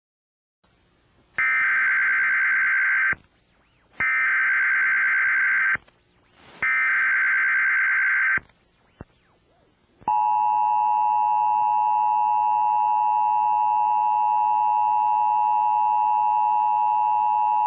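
Emergency Alert System broadcast: three short, harsh, buzzing SAME header data bursts, then the steady two-tone EAS attention signal (853 and 960 Hz) held for about eight seconds. Together they mark the start of an emergency alert.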